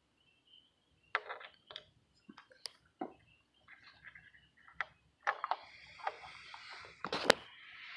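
A scattered series of small clicks and knocks from hand-handling the metal gear cap, O-ring and tools at the motorcycle engine's side cover. The sharpest knock comes a little after seven seconds in.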